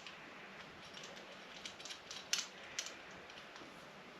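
A few small, sharp clicks and taps of hardware being handled while a horn mounting bracket is fitted, the two loudest about two and a half seconds in and shortly after, over a faint room hiss.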